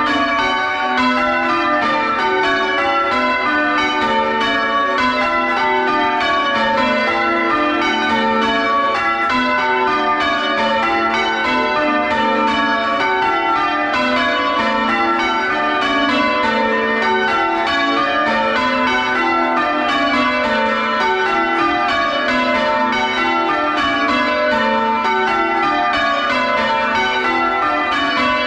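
Front six (lightest) church bells of a ring being rung full circle, struck in steady sequence with each row stepping down the scale, heard loud from inside the bell chamber. The ringing stops near the end and the last strokes hum away.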